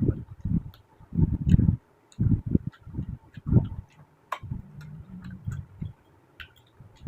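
Close-miked chewing and mouth sounds from eating soft food: short low thuds of chewing about two or three times a second, with small wet clicks and smacks.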